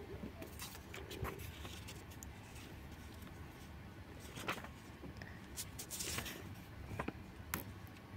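Faint rustling and handling noise with scattered soft clicks, one about a second in and several more between about four and eight seconds in.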